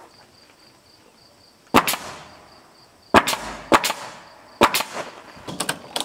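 Nail gun firing nails into rough-sawn lumber siding boards: a handful of sharp shots, the first a little under two seconds in, then the rest about half a second to a second apart.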